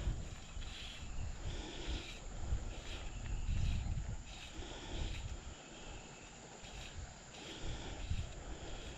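Insects calling in short, high-pitched bursts that repeat about once a second, over a low, uneven rumble.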